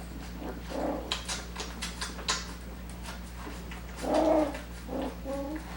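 Coton de Tulear puppies giving short whimpers and grunts, a few separate calls with the loudest about four seconds in, with light clicks and scuffles of the pups moving in between.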